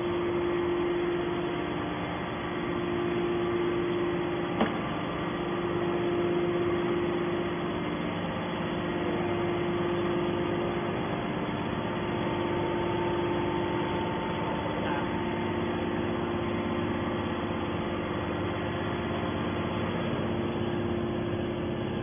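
Hydraulic scrap-metal baler's electric motor and pump running steadily with no press stroke under way: an even hum with a few steady tones, and one sharp click about four and a half seconds in.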